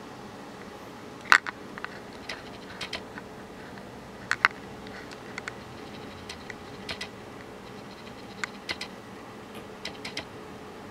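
Munchkin cat chattering: short, sharp clicks in small quick clusters, about one cluster a second. The loudest come about a second in and just past four seconds. This is the excited chatter a cat makes while watching prey it can't reach.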